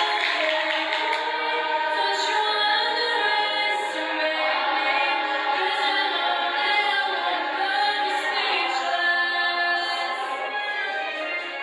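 Children's choir singing together, holding long sustained notes on several pitches at once.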